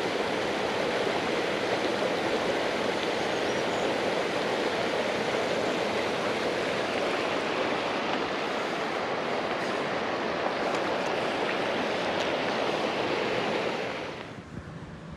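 Mountain creek water rushing steadily over rocks, a dense even wash that cuts off abruptly near the end.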